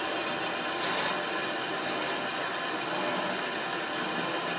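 Wood lathe running steadily with a faint high whine, while a pencil point is held against the spinning wooden ball blank to mark rings on it: a short hiss each time the point touches the wood, about once a second.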